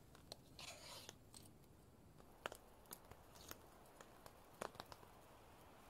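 Faint handling noises from camp gear against near silence: a short rustle about half a second in, then scattered light clicks and taps.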